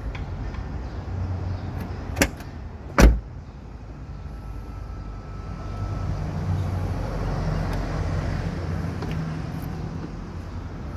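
A Volkswagen Caddy's HU66 door lock being worked with a lock decoder pick, giving two sharp clicks about a second apart, the second louder, over a steady low background hum.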